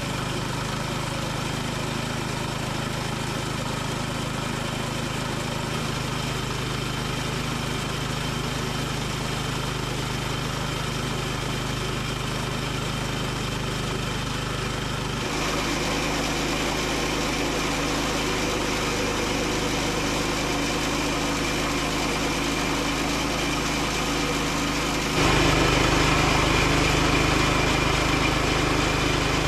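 Portable bandsaw sawmill's small engine running steadily through a board cut. Its sound changes abruptly about halfway through, and again near the end, where it gets louder.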